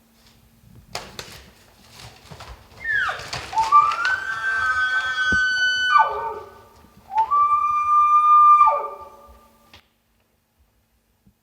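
Elk bugling twice. The first call slides down from a high pitch and holds a high whistle for about three seconds before dropping low. The second rises into a shorter held whistle and drops the same way. A few clicks and rustles come about a second in.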